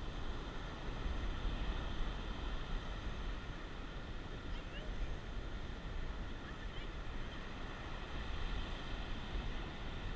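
Atlantic Ocean surf washing steadily on the beach, with wind rumbling on the microphone.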